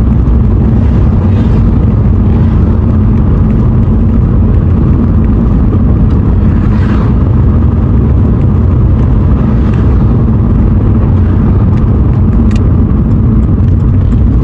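Loud, steady low rumble of a car's engine and tyres heard from inside the cabin while driving at road speed.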